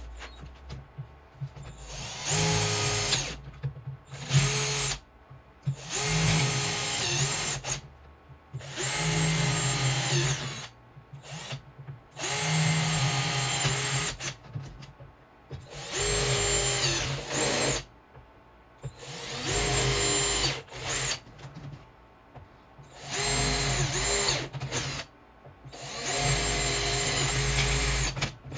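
Power drill run in about nine short bursts, each spinning up and winding down, drilling holes through aluminum angle into plywood.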